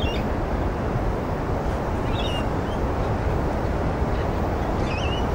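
Steady wind rumble on the microphone, with a few faint short high chirps over it.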